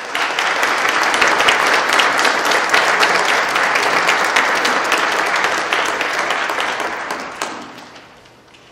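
Audience applauding, a dense clatter of many hands that dies away over the last second or two.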